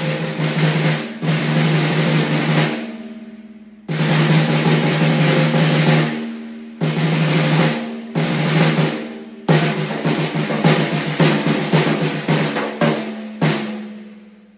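Mapex Black Panther Hydro 13x7-inch wooden snare drum played straight out of the box, before any tuning: several fast rolls of two to three seconds each with short breaks, then scattered single strokes near the end, the snare wires buzzing with a ringing drum note under the strokes.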